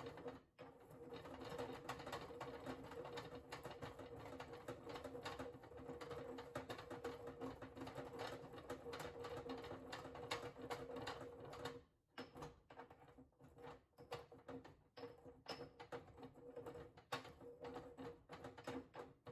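Pestle grinding toasted Szechuan peppercorns in a marble mortar: fast, continuous grinding strokes that break off briefly about twelve seconds in and then resume more unevenly. A steady low hum runs underneath.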